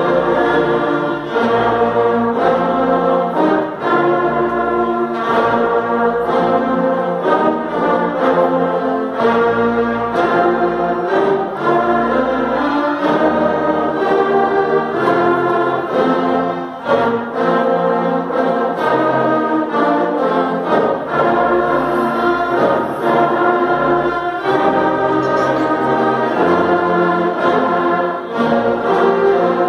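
Concert band of brass and woodwinds playing, full held chords shifting every second or so over a low bass line.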